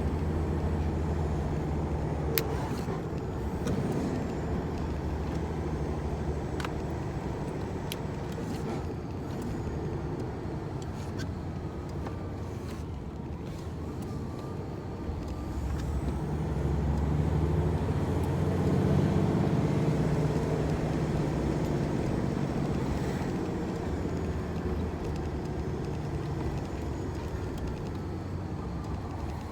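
Diesel engine of a large tractor-trailer truck running, growing louder for a few seconds past the middle and then easing off again. A few sharp clicks are heard in the first half.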